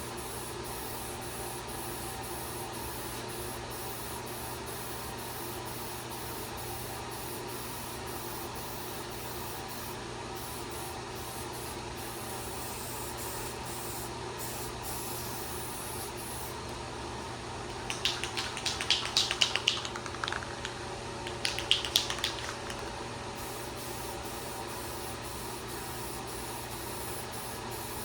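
A steady mechanical hum, with two short bouts of fast, even rattling about two-thirds of the way in.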